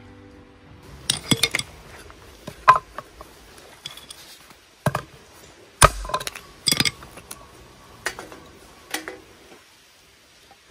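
Hatchet chopping firewood into kindling on a wooden chopping round: about seven sharp, irregularly spaced knocks of the blade striking and splitting wood, the loudest about six seconds in.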